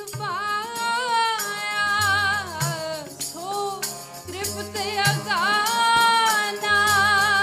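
Sikh kirtan: a woman singing a Gurbani hymn in long, gliding held notes over a steady low drone.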